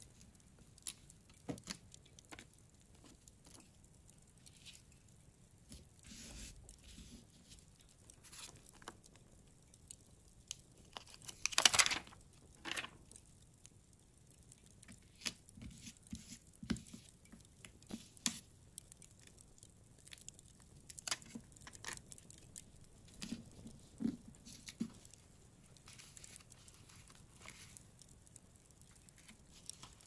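Quiet paper-crafting handling sounds: scattered soft taps and rustles of paper, with one louder rip of paper about twelve seconds in.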